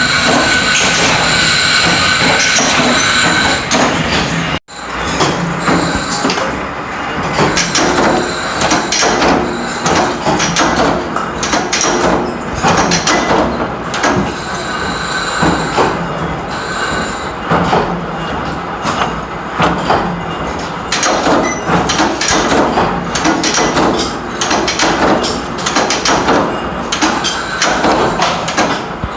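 Metalworking machinery in a workshop: a steady high-pitched grinding whine for the first few seconds, then a sudden break, followed by an irregular clatter of metal knocks and scraping.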